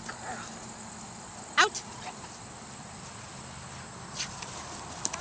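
Crickets trilling steadily on one high note. About one and a half seconds in, a single short, high cry rising in pitch is the loudest sound.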